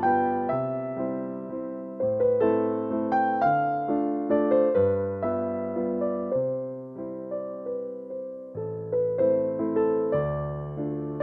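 Background music: a piano-type keyboard playing a gentle melody over held bass notes, each note and chord fading after it is struck.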